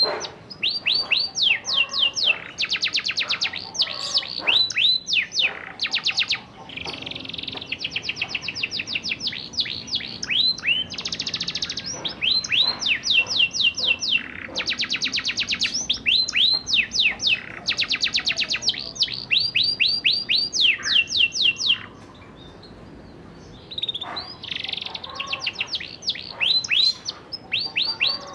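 Young domestic canary singing, still learning its rolling song: long runs of rapid trills, each made of the same short down-sliding note repeated over and over, one run after another. There is a gap of about two seconds roughly three quarters of the way through.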